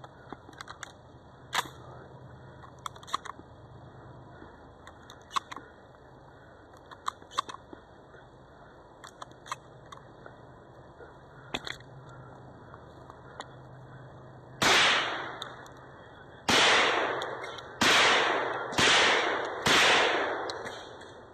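Five loud gunshots on a shooting range in the second half, the first two about two seconds apart and the rest about a second apart, each trailing off in a long echo. Before them are only faint scattered clicks and knocks.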